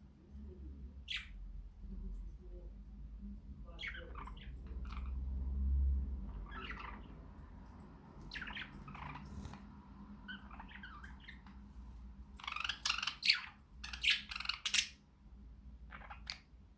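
Pet budgerigars chirping and squawking in short, scattered calls, loudest and busiest in a burst of rapid squawks about three-quarters of the way through. A low rumble runs under the first six seconds.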